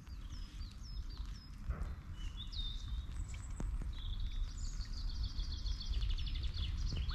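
Small songbird singing: a few short whistled notes that swoop down and up, then a fast twittering run of notes from about four seconds in, over a steady low rumble.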